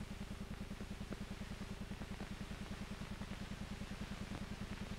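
Steady low pulsing hum of an old film soundtrack's background noise, beating evenly at about twenty pulses a second, with a faint steady tone above it.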